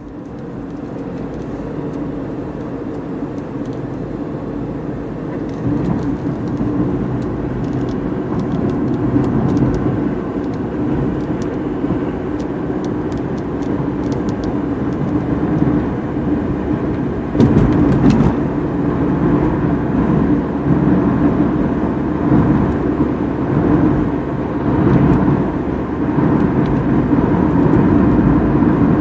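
A car driving at road speed, heard from inside the cabin: steady engine and tyre noise on concrete pavement, with a brief clatter a little past halfway through.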